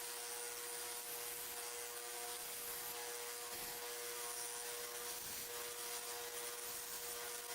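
A small electric motor running steadily, a constant hum over a faint hiss, with no grinding or rubbing strokes.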